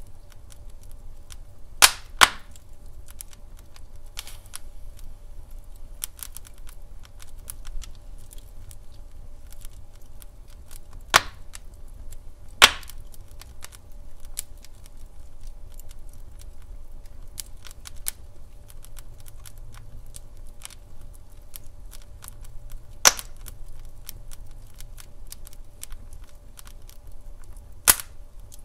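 Wood fire crackling in a fireplace: frequent faint ticks and snaps over a low steady rumble, with about six sharp, loud pops spread through it.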